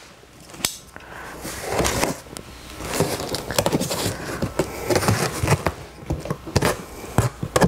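Box cutter slitting the packing tape along the top of a cardboard box: a sharp click near the start, then a run of crackling and scraping as the blade cuts through the tape and a cardboard flap is pulled up.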